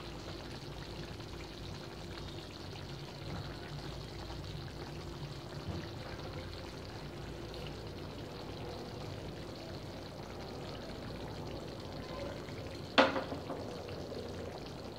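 Chicken and green pea curry simmering in an open pan over a low gas flame: a steady, watery bubbling hiss. One sharp click near the end.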